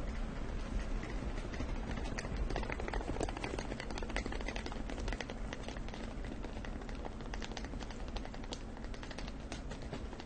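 Train station platform ambience: a steady low rumble under a busy background, with many light clicks and taps that grow denser about halfway through.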